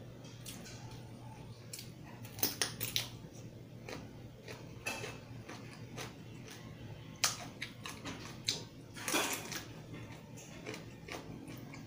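Crisp, irregular crunching as a whole raw cucumber is bitten and chewed close to the microphone, in several clusters of crunches. A low steady hum runs underneath.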